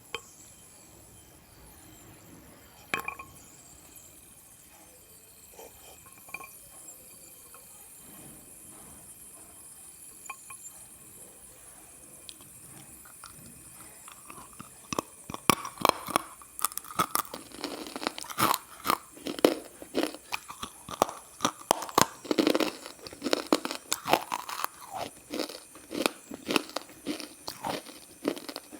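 Crisp crunching, close up: a few scattered crunches at first, then from about halfway a dense, continuous run of loud crunches.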